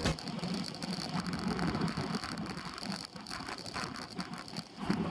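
Road bike being ridden on asphalt, heard from a handlebar-mounted camera: wind buffeting the microphone over tyre and rattling bike noise, louder near the end.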